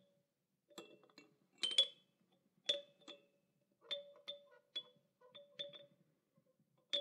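Faint, sparse tinkling notes, about a dozen at uneven intervals, each a short ring at the same high and low pitches: a delicate chime-like intro sound.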